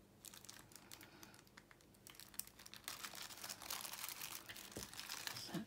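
Small clear plastic bag of craft gems crinkling and crackling as fingers rummage in it, faint, growing busier about halfway through.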